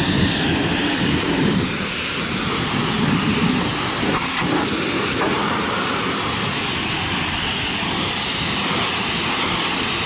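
Pressure washer jet spraying the steel panels and frame of a New Holland BC5070 square baler: a loud, steady hiss of high-pressure spray with water spattering on the metal, heavier and more uneven in the first few seconds.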